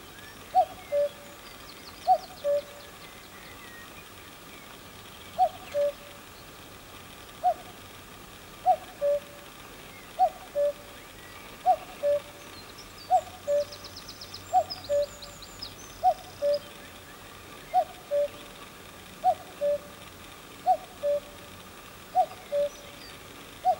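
Male common cuckoo calling its two-note "cuck-oo", a higher note dropping to a lower one, repeated about every one and a half seconds with a short pause a few seconds in. Faint twittering of small birds behind it.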